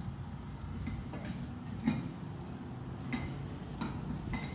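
Hydraulic jack's pump handle being worked, giving a few light, irregular metal clicks about a second apart.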